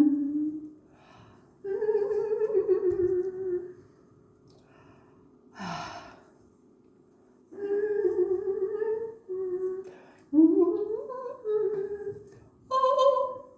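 A woman humming a wordless tune in several short phrases with held notes, pausing between them. A short breathy sound comes about six seconds in.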